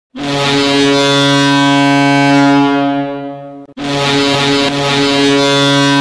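Real ice hockey arena goal horn sounding two long, loud blasts at one steady pitch: the first lasts about three and a half seconds and fades slightly at its end, the second starts right after a brief break and is still sounding.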